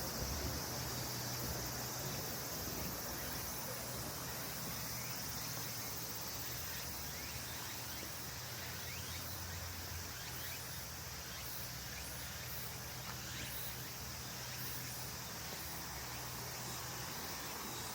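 Outdoor ambience of insects chirring high and steadily over an even wash of background noise, with a low hum underneath that eases off about halfway through.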